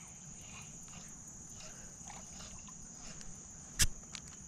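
A steady high-pitched insect chorus, with one sharp knock a little before four seconds in and a fainter click just after it.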